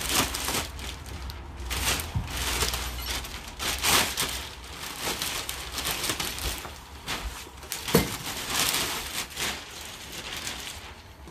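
Clear plastic packaging crinkling and rustling in irregular bursts as it is pulled off a new longline fishing torpedo, with a sharper knock or two.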